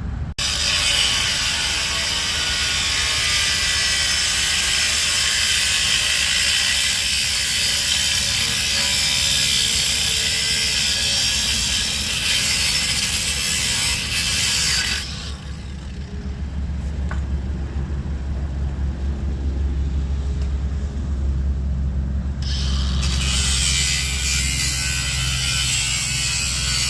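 A power tool cutting through the metal frame of a swing set. It runs for about fifteen seconds, stops, and starts again for the last few seconds, over a steady low rumble.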